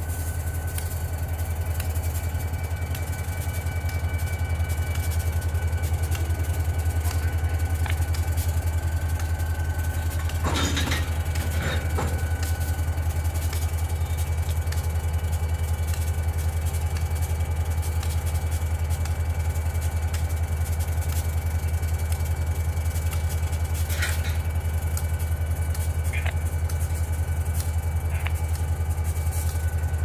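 Diesel-electric road locomotive running with a steady low engine drone as it creeps closer, growing louder over the first few seconds. A few short knocks sound about ten to twelve seconds in.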